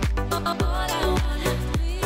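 Upbeat background music with a steady beat of about two beats a second and deep bass hits that slide down in pitch.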